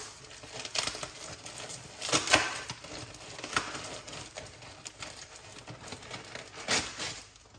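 Handling noise as leaves are gathered up: rustling with irregular clicks and knocks, the loudest about two seconds in and another near the end.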